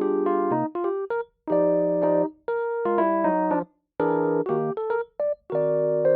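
Background music: electric piano chords playing in short phrases, broken by brief silent gaps.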